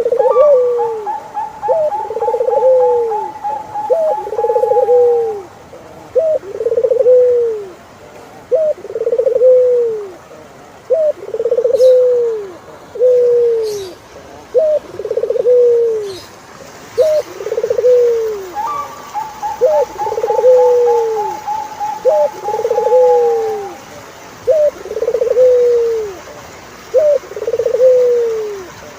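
Turtledoves cooing in a steady repeating phrase, a short rising note then a longer arched coo about every two seconds. A second bird gives a long, fast, gently falling trill twice, once at the start and again about two-thirds of the way through.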